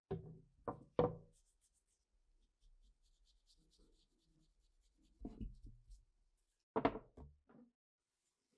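Hard knocks of a wooden DP-27 butt stock and parts being handled and set down on a wooden workbench: three in the first second, then two more clusters later, with faint rubbing of gloved hands on the wood between them.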